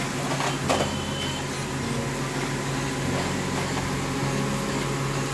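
Steady low mechanical hum, with a light knock under a second in.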